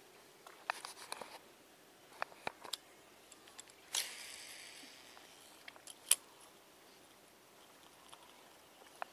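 Fishing reel spool whirring as line pays out during a cast: a sudden hiss about four seconds in that fades over a second or so. Scattered small clicks of the rod and reel being handled come before it, and a single sharp click, the loudest sound, follows about two seconds later.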